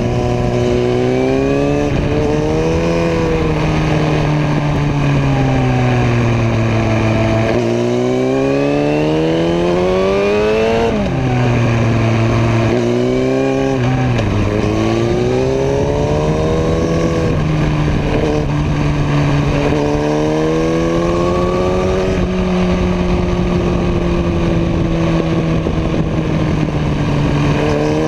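Motorcycle engine heard from an onboard camera while cornering, its revs rising and falling with the throttle. Twice near the middle the pitch drops sharply, as at a gear change, before climbing again.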